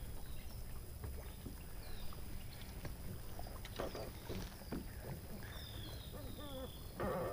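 Open-air ambience aboard a bass boat on a lake: a steady low rumble, faint high chirps, and a few light clicks, with a short louder burst near the end.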